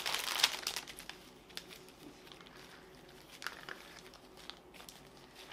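Small plastic zip-lock bags of diamond painting drills crinkling as they are handled and gathered into a larger plastic bag. The crinkling is densest in the first second, then thins to fainter scattered rustles.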